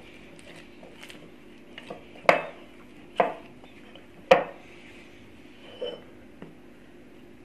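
Hand-kneading of dough in a glass mixing bowl: the glass bowl knocks sharply three times, about two, three and four seconds in, with a fainter knock near the end.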